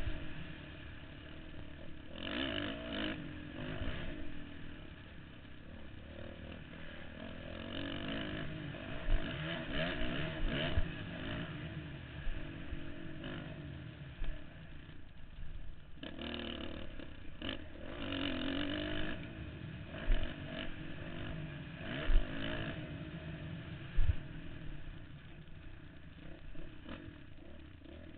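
Dirt bike engine revving up and down as it is ridden hard around a motocross track, heard through a helmet-mounted camera. Several sharp thumps stand out above the engine.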